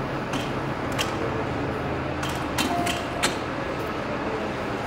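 Subway station ambience: a steady low hum with scattered sharp clicks and taps, irregularly spaced.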